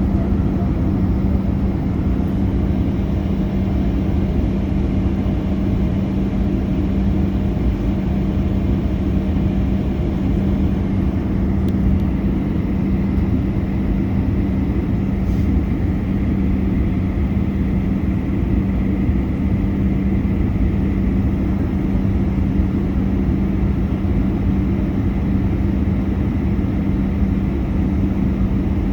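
Boeing 737-800 in flight: a steady drone of its CFM56 engines and rushing air, with a constant low hum throughout.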